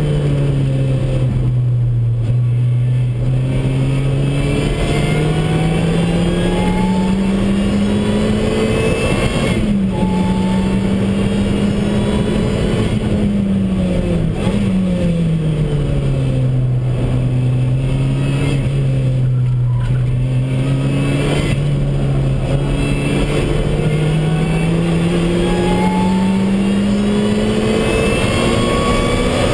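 Lotus Exige S engine heard from inside the cabin at speed, over road and wind noise. The engine note climbs slowly and steadily under load, drops back about halfway through as the driver lifts off, then climbs steadily again.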